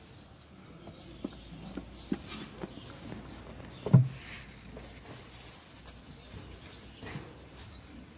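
Two kittens play-fighting inside a wooden box, their bodies and paws knocking against the plank floor and walls in scattered knocks, with one heavy thump about four seconds in. Faint short high chirps come and go throughout.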